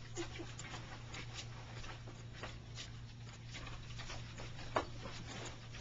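A small dog and a young raccoon play-wrestling on a slatted wooden swing: claws scrabbling and tapping on the wood in quick, irregular clicks, with one sharper knock near the end. A steady low hum runs underneath.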